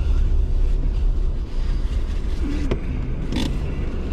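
Car driving on a rough road, heard from inside the cabin: a steady low rumble of engine and tyres, with a sharp click a little under three seconds in and a short hiss or rattle just after.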